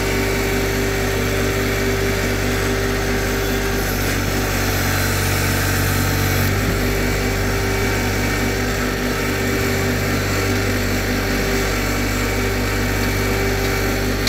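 John Deere 1025R compact tractor's three-cylinder diesel engine running steadily under light load while towing a lawn roller, heard close up from the operator's seat. A steady low drone with several held tones above it.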